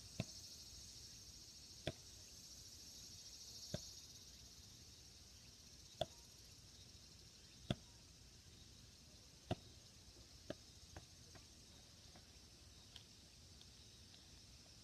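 Sharp single clicks or taps over a faint steady high hiss: about one every two seconds, then several closer together about ten seconds in.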